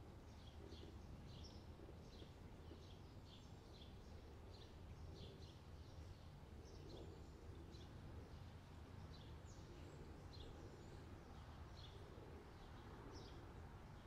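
Faint summer-night ambience: many short, high bird chirps, irregular and several a second, over a steady low background rumble.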